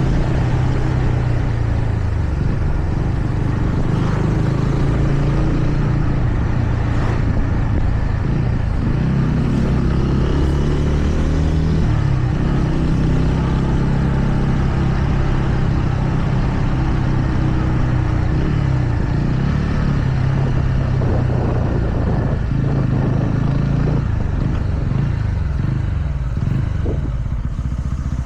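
TVS Ronin's single-cylinder engine running under way, its pitch rising and falling as the rider works the throttle and gears, with several short rev glides in the second half.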